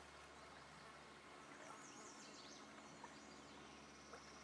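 Near silence: faint outdoor ambience, with a few faint high chirps about two seconds in.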